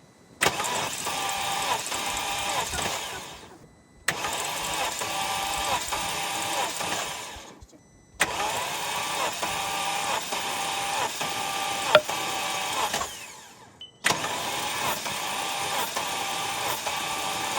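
BMW N62 4.4 L V8 turned over on its starter with the spark plugs out and the fuel pump fuse pulled, as for a compression test. It cranks in four runs of about three to four seconds each, each starting suddenly and winding down, the last still running at the end; the engine spins over without firing.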